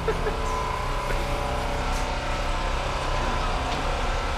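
Passenger train cars rolling slowly past at close range: a steady low rumble of wheels on rail with a thin, steady high squeal above it, as the train pulls into the station.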